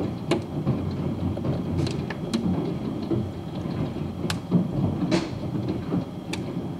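Hail falling in a storm: a steady dense patter with irregular sharp cracks, about one to two a second, as single hailstones strike hard surfaces.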